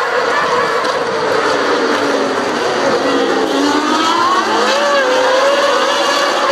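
A pack of 2012 Formula 1 cars with 2.4-litre V8 engines, several engines sounding at once. Their pitches fall as the cars brake and downshift into Turn 1, a tight corner, then rise again about halfway through as they accelerate out.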